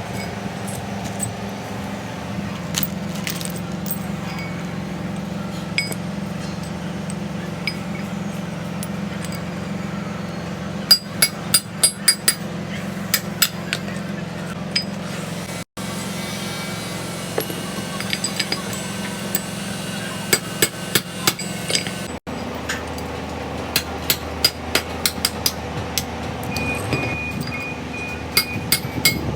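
Hammer blows on the steel of an excavator bucket, sharp metal strikes that come in quick runs of several blows, over a steady low machine hum.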